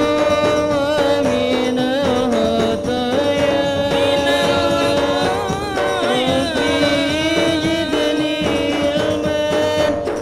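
A male voice sings a melodic devotional chant through a PA system, with an ensemble of frame drums and large hand drums beating along.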